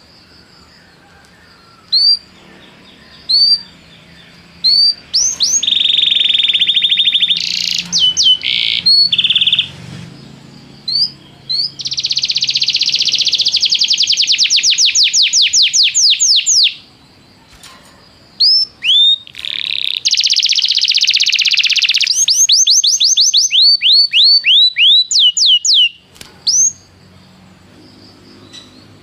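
Domestic canary singing in phrases: single chirps, fast trills of rapidly repeated falling notes, and buzzy rolls, broken by short pauses.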